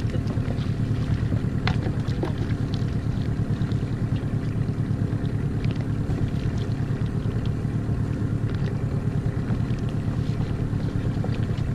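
Small outboard motor on an inflatable dinghy running steadily at low speed, a constant low drone, with wind buffeting the microphone. A few faint ticks sound over it.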